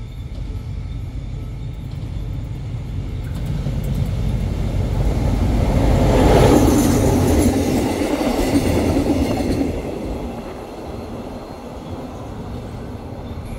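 Diesel-hauled train passing through a station: the locomotive's engine and the wheels on the rails grow louder to a peak about six seconds in as it goes by, stay loud for a few seconds, then fade to a low rumble.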